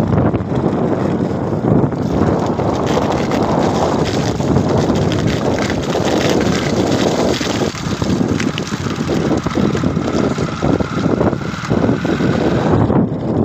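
Hail and rain falling in a storm, with wind buffeting the microphone: a loud, steady rush dotted with many sharp ticks of hailstones striking.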